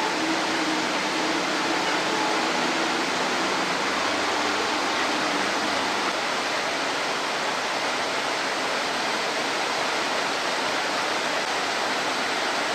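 A steady rushing noise that does not change, with a faint low engine hum under it for the first half.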